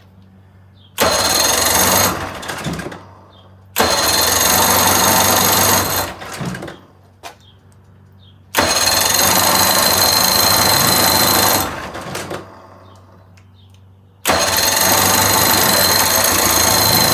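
1980 Chrysler 45 hp two-stroke outboard cranked by its starter in four bursts of one to three seconds each, not catching: a crank-no-start, which the owner suspects comes from stale ethanol fuel or a plugged carburettor.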